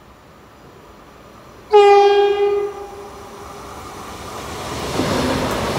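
Frecciarossa high-speed train sounds its horn once, a single note held for about a second, starting about two seconds in. The running noise of the approaching train then grows steadily louder.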